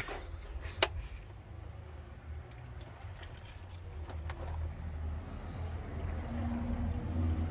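Coolant sloshing in a plastic tub as it is handled over the engine bay, over a steady low rumble that grows louder towards the end, with a sharp click just under a second in.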